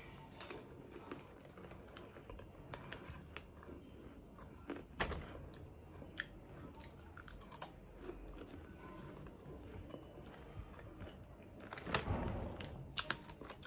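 A person chewing popcorn with the mouth closed: faint, irregular crunching, with a few louder crunches.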